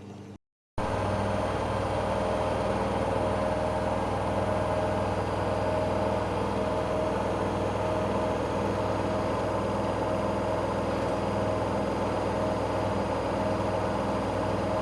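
Hoover washing machine running its drain-and-spin cycle: a steady machine hum with a faint, regularly pulsing whine, starting abruptly about a second in.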